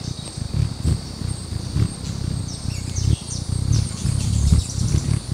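Hummingbird wings humming in uneven low pulses as White-necked Jacobins hover in and out at a feeder close to the microphone. Thin high chirps come in a cluster about two to three seconds in, over a steady faint high whine.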